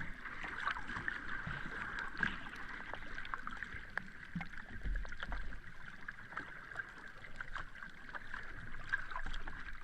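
Sea water lapping: a steady wash full of many small crackles and splashes.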